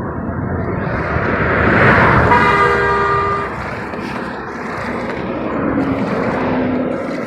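Road traffic noise with a vehicle passing close by, its rush swelling and fading about two seconds in. A vehicle horn honks once for about a second as it passes.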